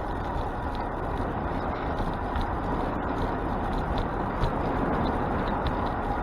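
Steady rush of street traffic and wind while cycling along a busy road.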